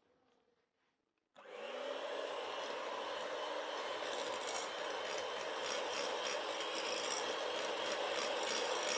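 Kenwood electric hand mixer switched on about a second in, then running steadily as its beaters cream butter, sugar and egg in a glass bowl.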